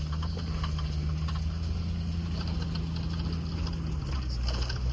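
Land Rover Discovery running at low trail speed, heard from inside the cabin as a steady engine hum with scattered light rattles; the engine note drops slightly about four seconds in.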